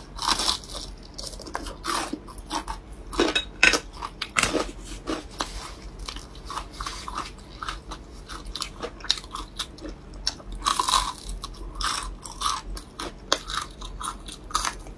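Close-miked crunching bites and chewing of crispy fried chicken cutlet: an irregular run of crunches, loudest around the fourth and eleventh seconds.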